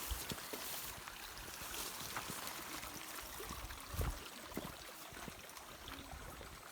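Small stream running, a steady rush of water, with scattered footsteps and one thump about four seconds in.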